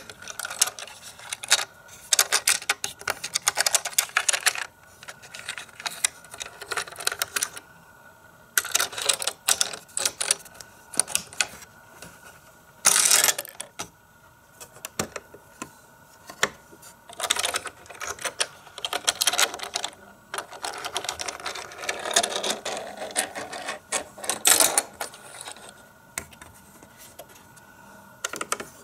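Plastic racetrack playset and a tiny die-cast Micro Machines race car being handled, rattling and clicking. The sound comes in several bursts of rapid clicking a few seconds long, with one short, louder clatter about halfway through.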